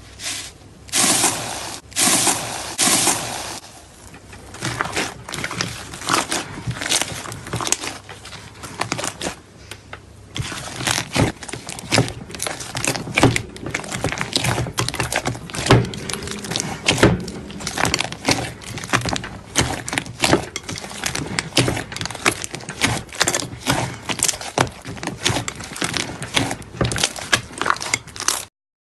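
Slime being squeezed and poked by hand, making a dense run of irregular sticky clicks and crackles, with a few louder squelches about one to three seconds in; it cuts off suddenly near the end.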